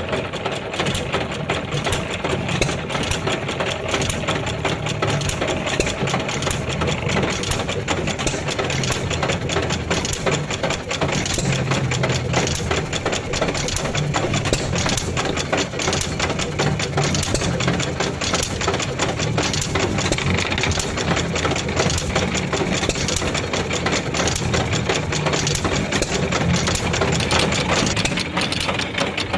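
3/4 HP Bluffton single-cylinder hit-and-miss engine running and driving an Eaton's wooden washing machine, with a steady, fast mechanical clatter from the engine and washer mechanism.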